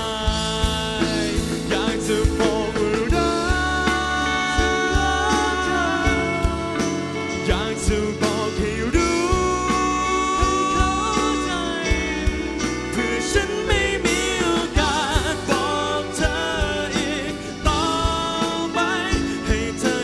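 A man singing live into a handheld microphone over a band with drums and bass, holding long notes with vibrato.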